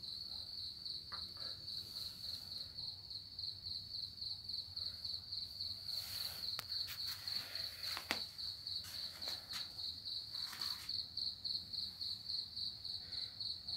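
A cricket chirping steadily in a high, even pulse, about four chirps a second, with a few faint clicks and knocks along the way.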